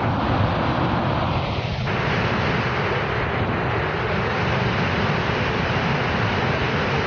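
Loud, steady roar of Iguazú Falls: huge volumes of water plunging and crashing, heard as one continuous rushing noise.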